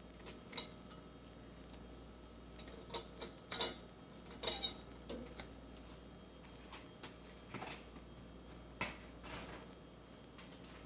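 Small steel valve-train parts (valve springs, retainers and keepers) clinking and tapping as they are handled and sorted into buckets: irregular light metallic clicks, bunched together about a third to halfway through, with one short ring near the end.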